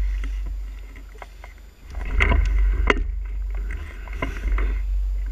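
300cc two-stroke enduro bike being ridden on a trail, heard through a bike-mounted action camera as a deep rumble with gusty wind buffeting on the microphone. Sharp knocks from the bike over bumps, the loudest about two and three seconds in.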